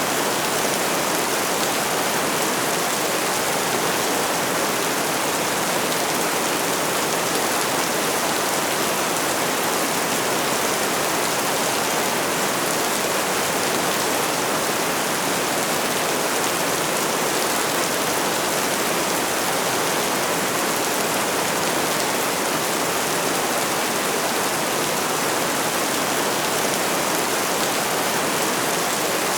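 Steady rain falling, an even, unbroken hiss with no single drops, thunder or other events standing out.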